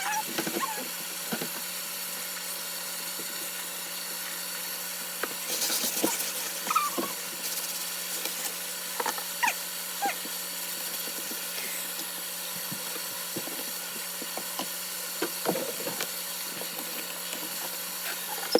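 Small electric motor whirring steadily with a low hum. Light clinks and taps sound over it.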